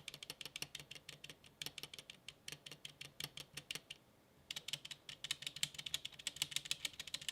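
Stabilized keys of a GamaKay K61 60% mechanical keyboard with Gateron Yellow linear switches being tapped repeatedly: a quick run of key clacks, several a second, with a short pause about four seconds in. The pre-lubed stabilizers give some rattle.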